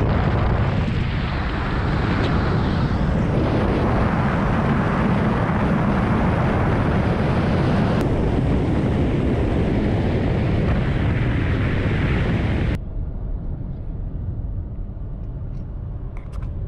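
Steady, loud rushing noise of a car travelling on the road, tyre and wind noise heaviest in the low end. It drops abruptly to a quieter rush about thirteen seconds in.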